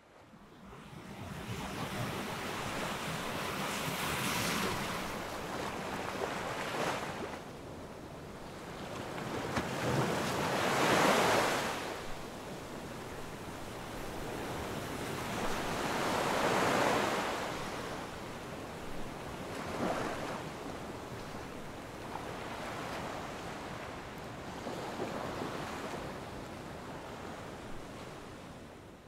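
Coastal ambience: waves breaking on the shore in slow swells under steady wind, with wind buffeting the microphone. The surges come every few seconds, the biggest about eleven seconds in.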